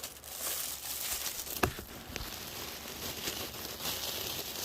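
Packaging rustling and crinkling as it is handled and pulled open, with one sharp click about a second and a half in.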